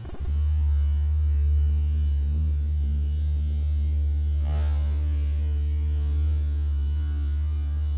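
A loud, steady low hum with a few overtones, with a brief hiss about four and a half seconds in.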